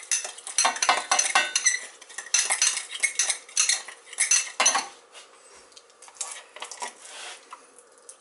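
A spoon stirring marinade in a small ceramic bowl: rapid clinks and scrapes against the bowl for about five seconds, then only a few light taps.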